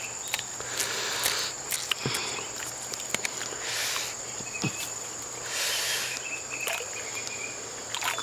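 Corn kernels clicking and pattering as they are thumbed off a cob into a cupped hand, in short irregular ticks. Under them runs a steady high-pitched insect drone.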